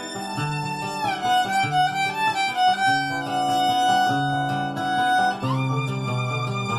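Instrumental music: a violin plays a held melody, sliding down to a lower note about a second in and up again near the end, over a low plucked accompaniment.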